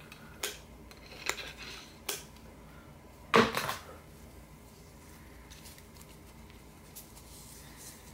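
Light metallic clicks of a pump oil can being worked to oil a piston, three of them about a second apart, then a louder metallic clatter about three and a half seconds in as it is handled; after that only faint handling.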